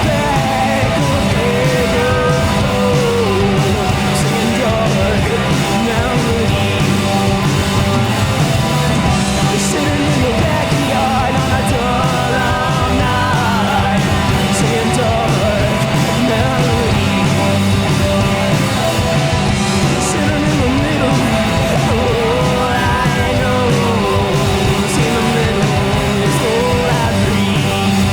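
Live rock band playing an instrumental passage: electric guitar and drums, with steady low notes underneath and frequent cymbal crashes.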